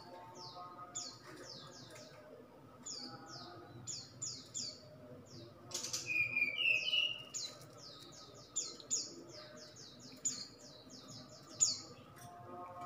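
Caged brown-chested jungle flycatcher (sikatan rimba dada coklat) singing: a string of short, high whistled notes, each slurring downward, bunching into quick runs in the second half. A lower warbled phrase comes about six seconds in, just after a single sharp click.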